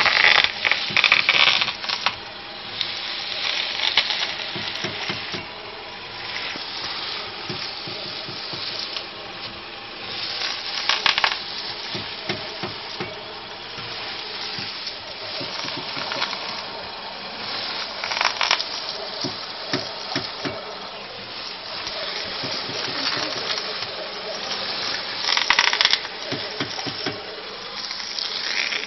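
Irregular knocking from the front end of a Kia Ceed, sharp knocks coming in clusters over a steady rushing noise.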